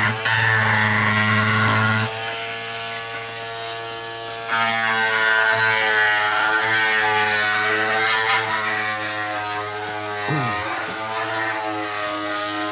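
A small electric power tool motor running with a steady buzz as plastic is worked; its level drops for a couple of seconds and then picks up again.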